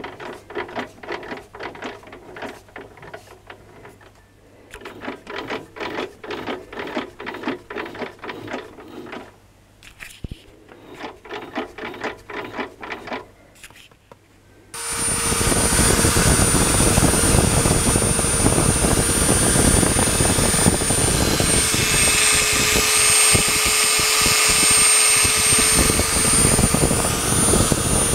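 Lathe machining the commutator of a power-tool armature. For the first half there is a quieter run of rapid, irregular clicking. About halfway through, a machine starts abruptly and runs loudly and steadily with a high whine.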